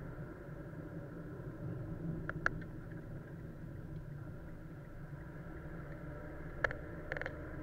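Steady low hum of a car running, picked up by a dashcam inside the cabin. A few short sharp clicks come through, a pair about two and a half seconds in and more near the end.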